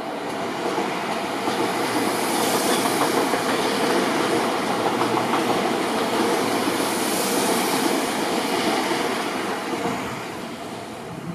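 Seibu 001 series 'Laview' limited express electric train passing through a station at low speed: the steady running of its wheels on the rails, swelling over the first second as the cars come alongside and fading near the end.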